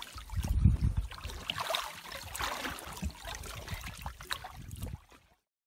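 Water splashing and trickling around hands holding a peacock bass in the river for release, with uneven low rumble, loudest about half a second in. The sound cuts off abruptly near the end.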